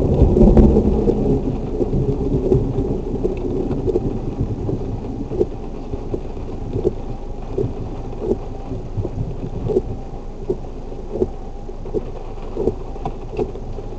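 Thunderstorm: a rumble of thunder, loudest in the first two seconds and easing off, over steady heavy rain. After the rumble the rain goes on with sharp taps at a fairly even pace, a little more than one a second.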